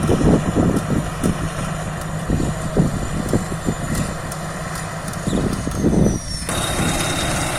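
Rice combine harvester running: a steady engine drone with irregular low thumps. About six and a half seconds in the sound changes abruptly to a smoother drone with a thin high whine.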